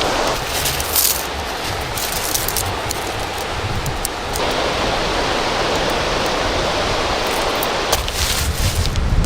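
River water rushing steadily in a loud, even wash. A few sharp clicks come in the first second and again near the end, along with some low rumbling.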